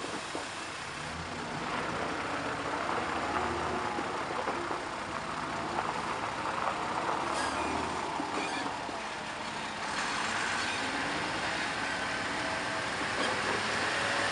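Diesel engine of an Iveco fire engine running as the truck crawls over a rough gravel track toward the microphone, growing louder about two seconds in and again near the end.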